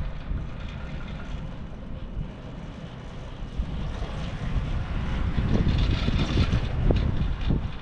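Wind buffeting the microphone on an open chairlift ride up the mountain, a rough, gusty rumble that swells louder about four seconds in and eases near the end.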